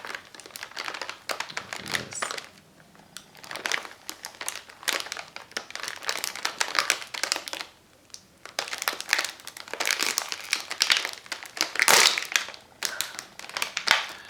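Crinkly plastic wrapping of an Oreo cookie package being handled and opened, in bursts of crinkling with short pauses, loudest about twelve seconds in.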